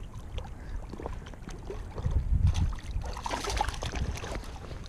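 Wind buffeting the microphone, with a hooked largemouth bass thrashing and splashing at the surface of the shallows as it is landed by hand, about three seconds in.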